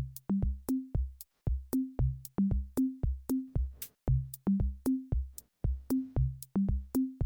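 Background music with a steady electronic drum-machine beat: deep pitched kick-drum thumps and crisp hi-hat ticks in an even rhythm.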